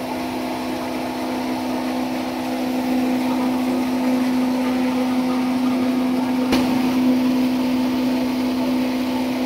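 3 HP blower pulverizer spice grinder running under load, grinding dried red chillies: its electric motor and hammer rotor give a steady hum over a constant whirring noise, with one short click about six and a half seconds in.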